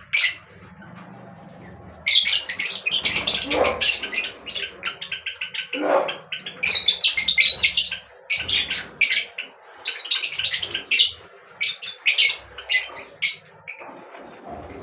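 Small birds chirping in rapid runs of short, high calls, coming in bursts with brief pauses, plus a couple of lower squawk-like calls.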